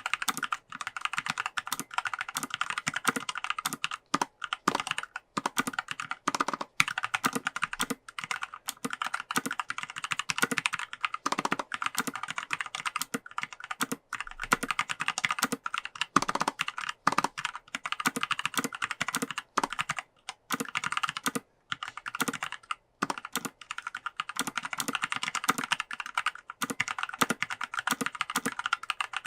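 Continuous fast typing on a mechanical keyboard with Kailh Pro Heavy Berry linear switches, an aluminium plate and PBT keycaps: a rapid, uneven stream of key clacks with a few brief pauses.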